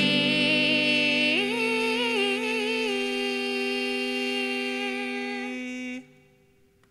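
Two voices holding the final sung note of an acoustic duet with guitar, one voice sliding up to a higher pitch about a second and a half in; the held note cuts off about six seconds in.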